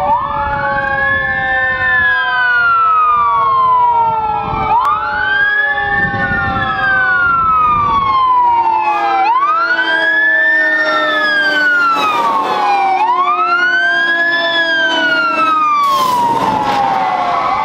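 Fire truck sirens wailing as a fire engine and ladder truck approach and pass: one siren rises quickly and falls slowly about every four seconds over a second, lower siren tone, with the trucks' engines beneath. Near the end the lead engine passes close with a rush of noise.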